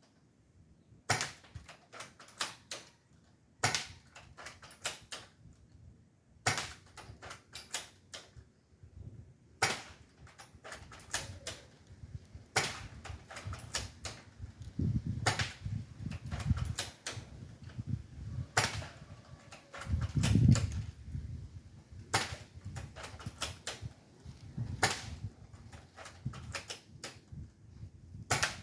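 Spring-powered airsoft Kar98k bolt-action rifle being shot over and over, about one shot every three seconds. Each shot is a sharp snap followed by a quick run of small clicks as the bolt is worked. A few dull handling thuds come in the middle.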